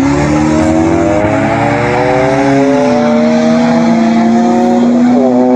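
Car engine accelerating hard, its pitch climbing steadily for several seconds, with a brief dip near the end before it holds steady.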